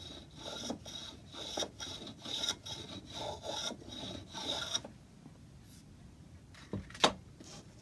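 Shoulder plane taking short, quick shaving strokes along an oak moulding edge, rounding over the bead, for about five seconds. A single sharp knock about seven seconds in.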